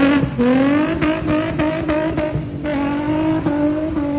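Car engine breathing through an aftermarket ISR Y-pipe exhaust, running hard at high revs with the pitch held high. It dips briefly just after the start and steps down slightly about two and a half seconds in.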